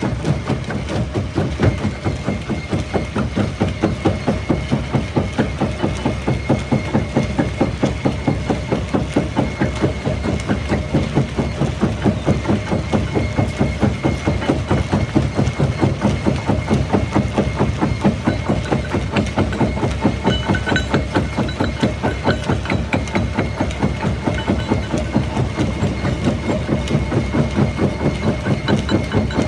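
Jaw rock crusher running and crushing stone, a loud, even, fast rhythm of strokes from the working jaws over a constant machine drone.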